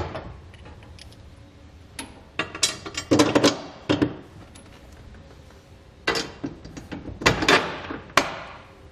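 Steel carriage bolts clinking and knocking against a steel fifth-wheel base rail as they are pushed down into its mounting holes. There are several separate sharp metal clinks and short rattles, with the busiest stretch about three to four seconds in and more clinks near the end.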